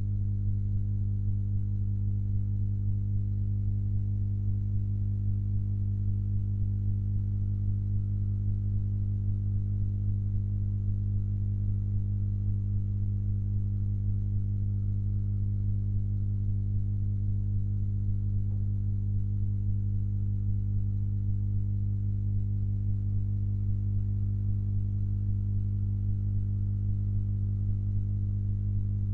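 Steady low electrical hum with a stack of overtones, unchanging throughout, typical of mains hum picked up by the recording.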